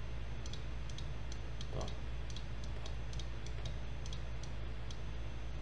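Computer mouse clicking, about fifteen light, sharp clicks at an irregular pace of roughly three a second, over a steady low hum.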